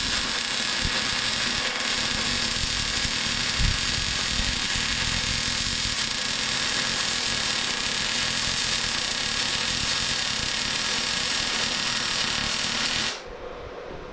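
Gas-shielded MIG welding arc from a STAHLWERK MIG 135 M IGBT inverter welder, feeding 0.8 mm solid wire under an argon/CO2 Mix 18 shielding gas onto scrap steel: a steady sizzling crackle that stops abruptly about a second before the end.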